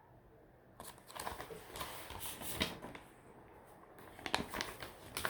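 Clatter of clicks and rustling, like something being handled, in two spells: from about a second in for two seconds, then again briefly near the end.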